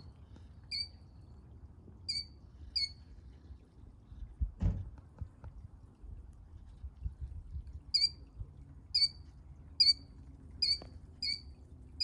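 A small shorebird calls with short, sharp high chirps: three in the first few seconds, then a run of about six, roughly a second apart, near the end. A dull low thump comes near the middle.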